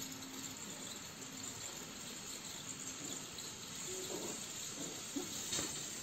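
Steady hiss of the ampoule sealing machine's gas-and-oxygen burner flames, jetting as the oxygen and gas flows are tuned. That jetting sound is the sign the operator listens for to know the flame is set right.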